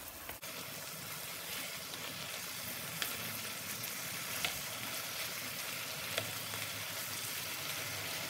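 Chicken pieces sizzling steadily in oil and their own juices in a nonstick frying pan over a high flame, the liquid boiling off. A spoon stirs them, with a few sharp clicks against the pan.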